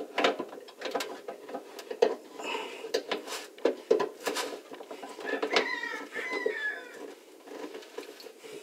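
Steel wrench clicking and scraping against the lugs of a sink basket strainer's locknut as the nut is turned in short strokes. A couple of short falling squeaks come about halfway through.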